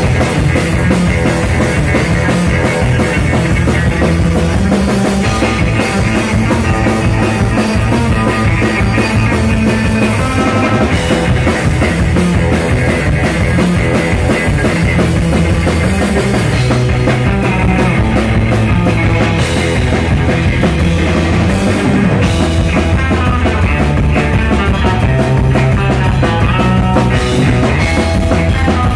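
A rock band playing live: electric guitar, bass guitar and drum kit, loud and steady, with no vocals.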